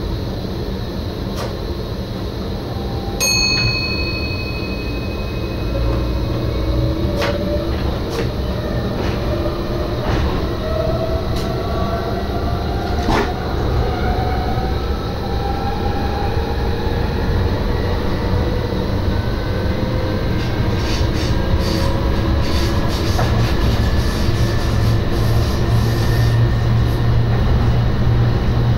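Inside the cab of an NS SGM Sprinter electric multiple unit: a short electronic beep about three seconds in, then the traction drive's whine rising slowly in pitch as the train gathers speed. Underneath is a steady low running rumble with scattered clicks from the wheels on the track.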